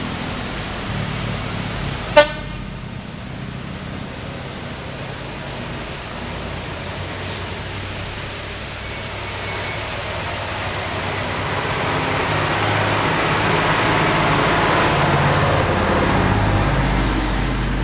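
Traffic on a steep hill road: truck engines drone low and steady, a short loud horn toot sounds about two seconds in, and then a car comes closer, its engine and tyre noise swelling to a peak near the end.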